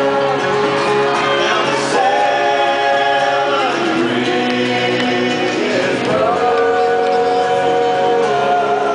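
Live acoustic band with several male voices singing close multi-part harmony, holding long chords that change about every two seconds.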